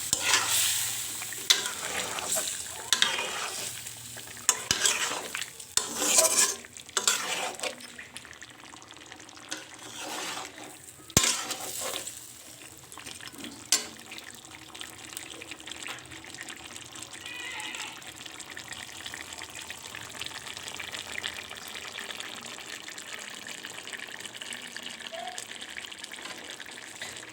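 Chicken pieces and potatoes frying in oil and spice paste, sizzling, while a spatula scrapes and stirs them in irregular strokes for about the first half; then a steady sizzle. One sharp knock about eleven seconds in. This is the meat being browned in the masala before water is added.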